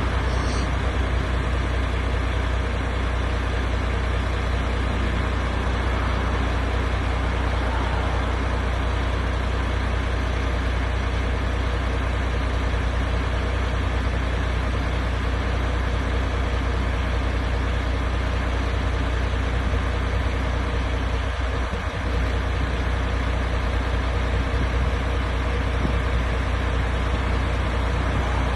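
MAN TGX 18.500 truck's 12.4-litre straight-six diesel idling steadily, with a brief dip in level about three-quarters of the way through.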